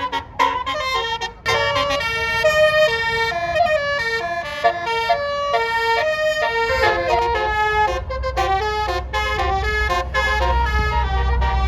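A bus's 'basuri' musical air horn playing a melody of held notes that step up and down, with the bus engine rumbling underneath from about halfway through.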